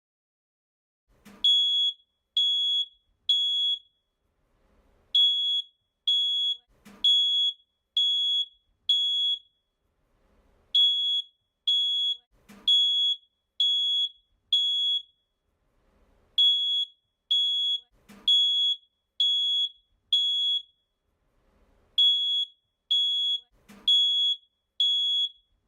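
Smoke alarm beeping: short, high-pitched beeps about one a second, in groups of about five with a short pause between each group.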